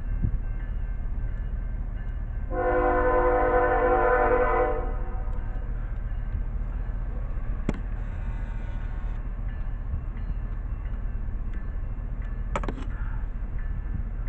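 Freight train's diesel locomotive horn sounds one chord for about two seconds, a few seconds in, as a grade-crossing warning, over the steady low rumble of the train moving past. Two sharp clicks follow later on.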